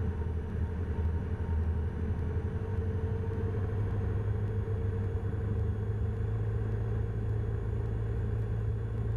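Cessna 172 Skyhawk's piston engine and propeller droning steadily in the cabin on final approach.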